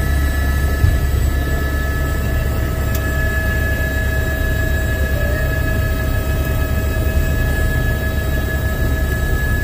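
Turbine helicopter running steadily, heard from inside the cabin: a deep, constant rotor drone under an even, high-pitched turbine whine.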